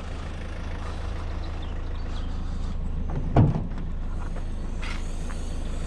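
Van engine running with a steady low drone, and a single knock about three and a half seconds in.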